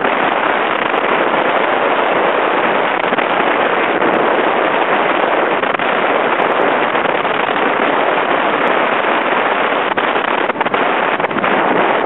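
Steady rush of wind and road noise from a car driving along a highway at speed.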